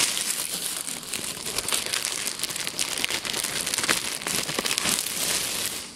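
Clear plastic bread bag crinkling and rustling as it is handled close up, a dense crackle that stops just before the end.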